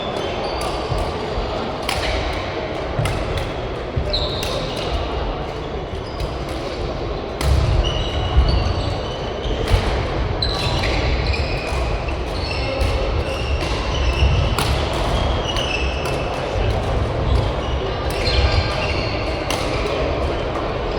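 Badminton doubles play in a large sports hall: repeated sharp racket strikes on the shuttlecock, thuds of footwork, and many short high squeaks of shoes on the court floor.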